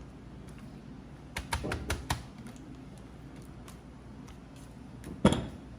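Kitchen utensils clicking and tapping against a dish: a quick run of light clicks about a second and a half in, then one louder knock near the end.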